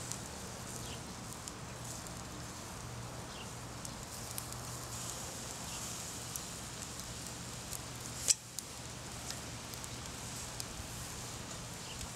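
Quail sizzling on a cast-iron grill grate over a wood charcoal fire, with a steady hiss and scattered small crackles and pops. There is one sharp, louder click about eight seconds in.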